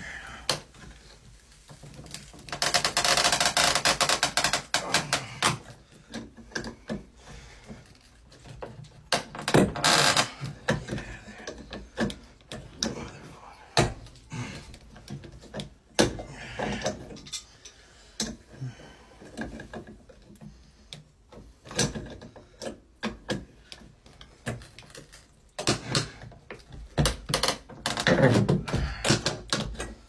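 Tongue-and-groove pliers gripping and twisting an old washing-machine supply fitting off a copper pipe: repeated sharp metal clicks and knocks, with a longer, louder stretch of scraping about three seconds in and shorter ones around ten seconds and near the end.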